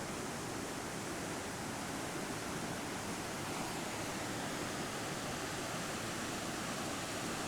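Steady rush of a flood-swollen river, its floodwater pouring over and around a bridge deck.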